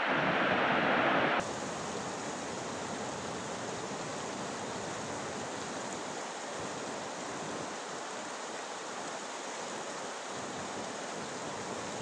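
Rushing water of a shallow creek running over rocks, a steady hiss-like rush. About a second and a half in, a louder, deeper rush cuts off abruptly and gives way to the lighter, steadier rush of the rapids.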